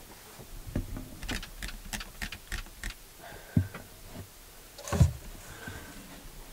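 Scattered knocks, clicks and thumps of a person climbing up out of a small sailboat's cabin into the cockpit, with handling noise from the moving camera. The heaviest thump comes about five seconds in.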